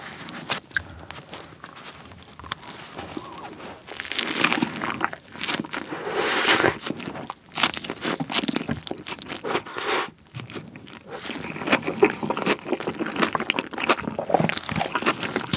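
Close-miked bites into a Subway sandwich topped with Buldak spicy stir-fried noodles, followed by crunchy, wet chewing. The loudest crunching comes about four to seven seconds in. There is a brief lull near ten seconds, then the chewing crunches pick up again.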